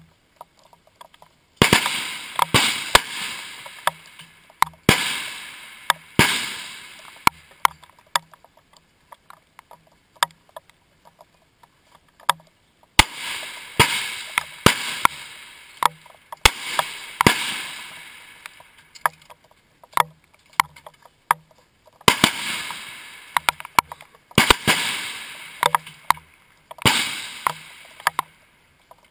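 Rifle shots from a busy firing line, irregularly spaced and sometimes only a second apart, each crack followed by a long echoing decay. Fainter sharp cracks fall between the loud ones, with quieter spells about a third and two-thirds of the way in.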